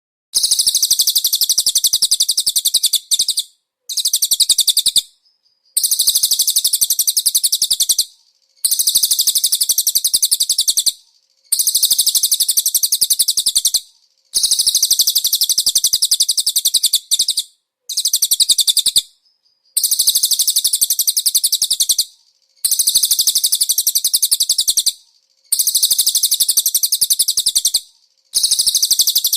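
Cililin bird song: a series of rapid, high-pitched trills, each lasting one to three seconds with short pauses between. This is recorded song of the kind used as a training tape for oriental magpie-robins to copy.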